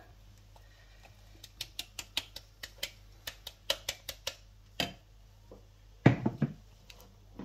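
A stainless steel cup tipped over a glass bowl and tapped to knock icing sugar out onto cream cheese: a run of light clinks, about three a second, then a heavier knock about six seconds in.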